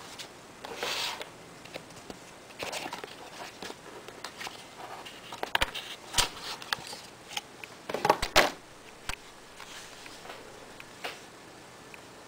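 Unboxing handling noise: a cardboard box and a Powergorilla portable battery pack being lifted and turned in the hands, with scattered rustles and several sharp clicks and knocks, the loudest about eight seconds in.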